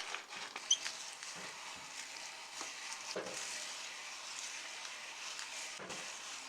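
Meat grinder crunching Goldfish crackers: a dense, steady crackling with scattered sharp clicks, starting suddenly.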